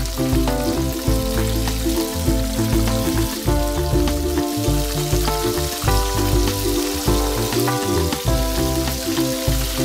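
Flour-coated fish fillets frying in a pan of hot oil: a steady sizzle and crackle, with background music carrying a bass line and repeated melody over it.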